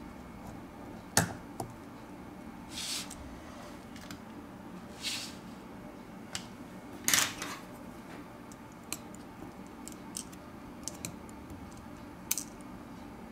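Small hand tools working on a phone's internals: sharp, irregular clicks of metal tweezers and a plastic pry tool against the frame and small parts, with a few short rustling scrapes. The loudest click comes about a second in.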